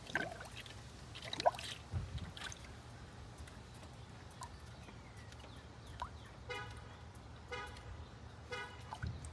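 Engine idling with a steady low hum, with a few clicks and knocks in the first couple of seconds. Three short car-horn toots follow near the end, about a second apart.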